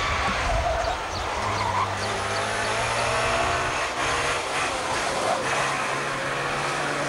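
Trabant 601's two-cylinder two-stroke engine running hard under load, its pitch rising and falling as the throttle is worked.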